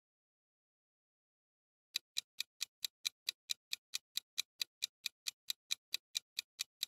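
Clock-tick sound effect of a quiz countdown timer: sharp, evenly spaced ticks, about four a second, starting about two seconds in after silence.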